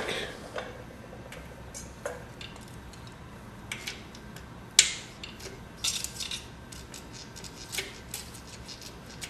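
Scattered light metallic clicks and scrapes of a feeler gauge being slid into the valve clearance at a tappet adjuster of a Honda 250 engine, rechecking the lash after the lock nut was retorqued. The sharpest click comes about five seconds in.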